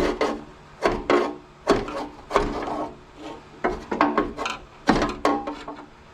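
Steel pry bar knocking a belt pulley back along the tractor's driveshaft: about a dozen sharp metallic knocks at uneven intervals, each ringing briefly.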